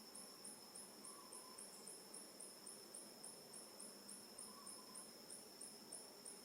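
Faint insects chirping in a steady, even rhythm of about three very high chirps a second, over a constant high-pitched drone.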